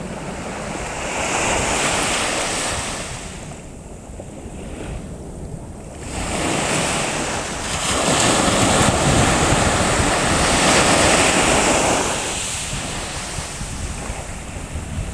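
Sea waves washing onto the shore in slow swells that rise and fall, the loudest in the middle, with wind rumbling on the microphone.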